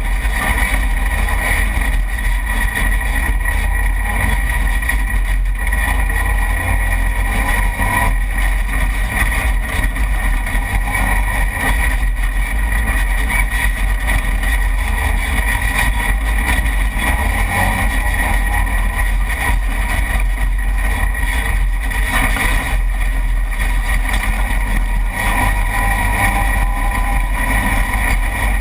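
Side-by-side UTV under way on a dirt trail, its engine and drivetrain running steadily with constant road and wind noise heard from a camera mounted on the hood. The noise stays loud and even, with a heavy low rumble throughout.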